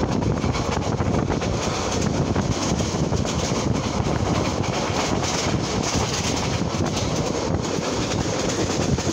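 Passenger train in motion, heard from inside a coach by the window: a steady rumble of wheels on rail with a dense rushing noise and scattered light clicks.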